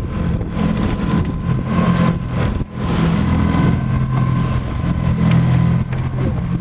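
Fishing boat's motor running steadily at low speed, a low hum, with knocks and handling noise on board.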